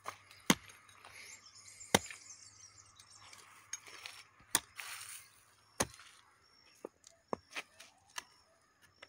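Metal hoe blade chopping into hard, dry soil around a cassava root clump. There is a sharp strike every second or two, the heaviest four in the first six seconds, then lighter knocks, with a brief scrape of loose earth near the middle.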